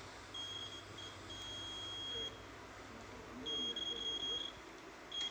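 Digital multimeter continuity beeper sounding in broken stretches as the probes touch points on a TV power supply board during an unpowered check: a few short beeps, one held for about a second, then another longer run of beeps.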